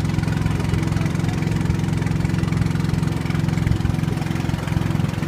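Engine of a small wooden river boat running steadily under way, a constant low drone with a fast, even pulse.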